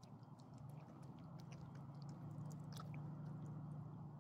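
Small dogs eating bits of chicken from a hand: faint wet chewing and licking with many small mouth clicks, over a steady low hum.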